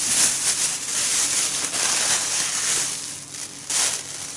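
Plastic bag crinkling and rustling as it is handled and closed shut, pausing briefly about three seconds in.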